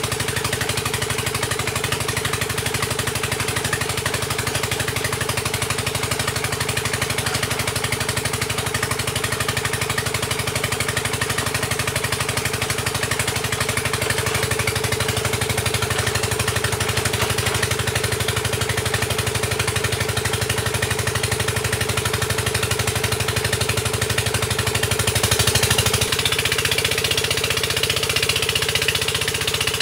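Engine of a well-drilling rig running steadily under load as the drill bores into hard ground. Near the end the low hum changes and a higher hiss grows.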